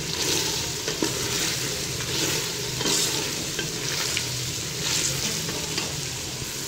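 Beef trotter broth boiling hard in an open aluminium pressure cooker, bubbling and sizzling with irregular crackles and pops as the last of the water cooks off.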